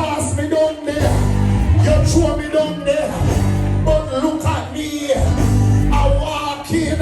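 Music with singing over a band with a strong, repeating bass line.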